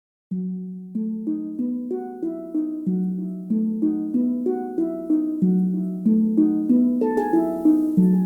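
Background music: a calm melody of quick notes that strike and fade in a repeating, even pattern. It begins a moment in, after a brief silence.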